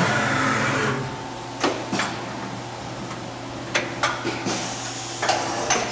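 Fadal CNC vertical machining center running a drilling program with coolant spray: a loud spray and cutting noise that drops away about a second in. A steady hum follows, broken by half a dozen sharp clicks and knocks.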